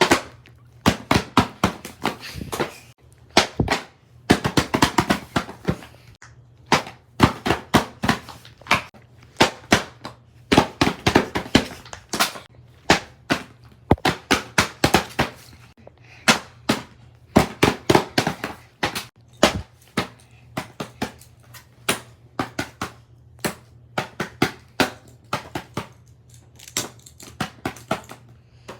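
Fidget toys being clicked and popped by hand: sharp, loud clicks in quick irregular bursts of several at a time, with short gaps between bursts.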